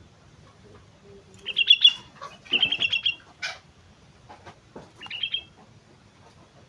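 Sooty-headed bulbul (kutilang) singing: three short bursts of quick, high chirping notes.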